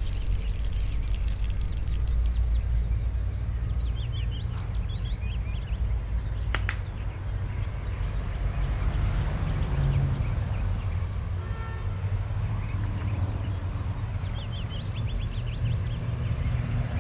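Outdoor ambience: a steady low rumble, with small birds chirping in short runs about four seconds in and again near the end, and one sharp click about seven seconds in.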